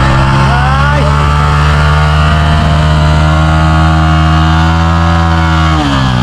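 Motorcycle engine held at high revs while the rear tyre spins in place on a steep dirt climb, a burnout for lack of grip. The revs climb a little about a second in, hold steady, then drop near the end.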